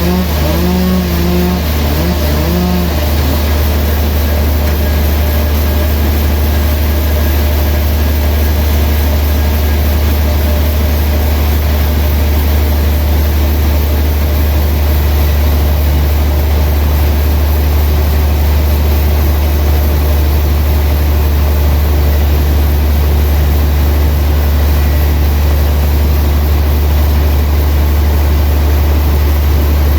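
Heavy machinery running with a steady, unchanging low drone, typical of a sawmill's engine-driven equipment.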